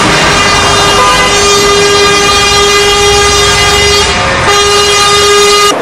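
Truck air horns held in long, steady blasts, several pitches sounding together, over the low rumble of lorries driving past; the horns break briefly about four seconds in.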